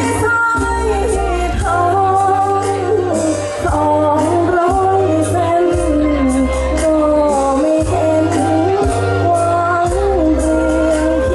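Young woman singing a Thai luk thung song into a handheld microphone, her voice held out in long notes with vibrato over instrumental accompaniment with a steady beat.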